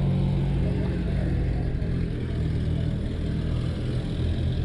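A motor vehicle's engine idling close by: a steady, low-pitched drone that does not change.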